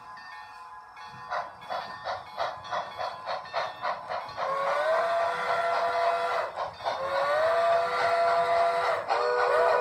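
Sound system of an HO scale model steam locomotive: steady exhaust chuffs at about three a second. About halfway in, a multi-tone chime whistle takes over and blows two long blasts, and a third begins near the end.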